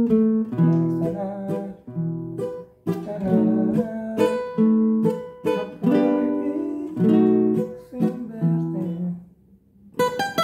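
Capoed requinto (small nylon-string guitar), picked with a fingerpick, playing a melodic phrase of separate plucked notes, often two at a time. This is the closing phrase of the song's introduction. The playing pauses briefly about nine seconds in, then a few quick notes come near the end.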